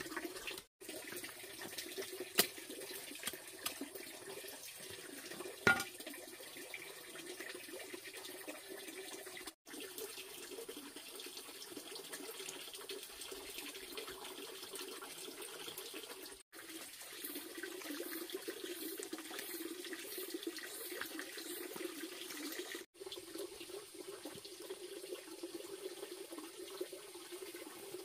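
Steady running water, a continuous rushing flow, with two sharp knocks a few seconds apart early on the way through.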